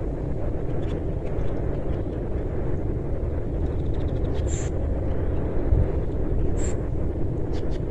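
Steady low rumbling outdoor noise, with two short high chirps, one about halfway through and one near the end.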